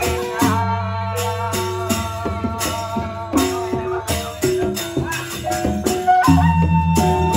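Gendang beleq gamelan music: a bamboo suling flute plays the melody over steady cymbal strokes and a deep low drum and gong layer. The low layer swells louder about six seconds in.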